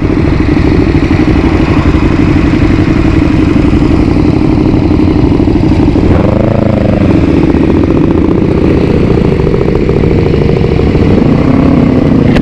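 Several motorcycle engines idling together at a stop, among them a Yamaha WR250X supermoto and a KTM Super Duke alongside. One engine is briefly revved about six seconds in, and the engine note rises near the end as the bikes pull away.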